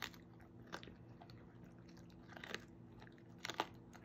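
A goldendoodle chewing a raw chicken leg quarter: scattered wet crunches of bone and meat, single ones at the start and just under a second in, then short clusters about two and a half and three and a half seconds in.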